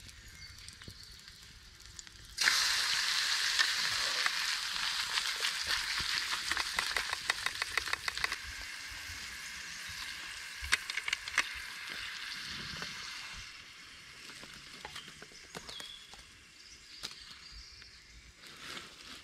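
Steak sizzling on the campfire: a loud frying hiss full of small crackles starts suddenly about two seconds in, then slowly dies down over the next ten seconds.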